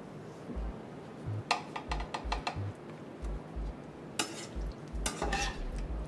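Metal skimmer spoon clinking and scraping against a pan and dish as sausage filling is scooped out and laid onto pie batter, with a run of quick clinks about a second and a half in and more near the end.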